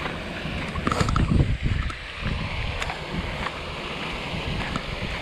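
Wind buffeting the camera microphone, an uneven low rumble over a steady outdoor hiss, with a few light clicks about a second in.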